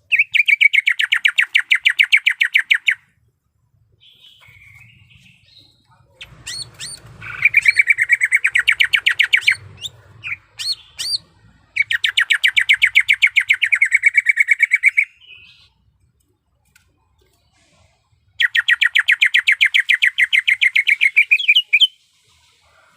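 Cucak ijo (green leafbird) calling in four long, loud, rapid trills of quickly repeated notes, about ten a second, with softer chips and short whistles in the gaps.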